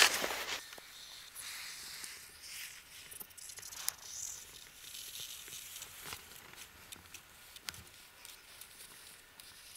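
A loud swish fades out in the first half second. After that there are faint, scattered crunches and clicks of skis and poles on crusty spring snow close to the microphone, over a light hiss.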